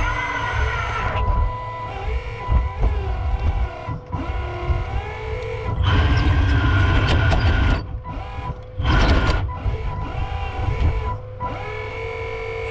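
Hydraulic pump of a 1/8 scale 385CF RC excavator whining steadily while it digs, with further machine tones shifting in pitch as the arm and bucket are worked, and the sound dropping away briefly a few times.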